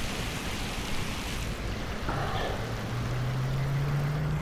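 Steady hiss of rain and wind noise, with a low engine hum coming in about halfway through and rising slightly in pitch toward the end.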